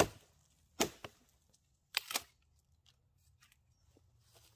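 Hultafors Hultan axe striking and splitting a short log: a sharp chop at the start, another knock just under a second in with a lighter one after it, and a quick pair of wooden knocks about two seconds in.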